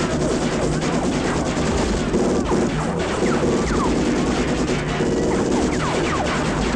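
Action-film sound effects: rapid bursts of gunfire and crashing metal impacts, with dramatic music underneath.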